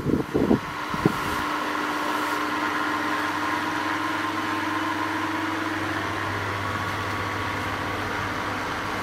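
A steady mechanical hum with a low drone and a fainter mid-pitched tone, after a few short knocks in the first second.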